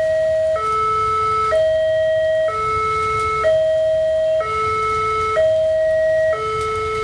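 Railway level-crossing alarm sounding its electronic two-tone warning, a higher and a lower note alternating steadily, each held about a second. It is the signal that a train is approaching and the crossing is closed.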